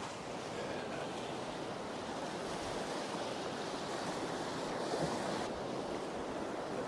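Steady wash of ocean surf breaking and running up a sand beach.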